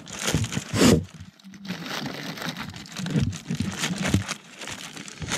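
Crinkly Dyneema fabric of a ZPacks Duplex tent rustling and crackling as a hand works a door toggle and tab. The crackles come unevenly, loudest just under a second in.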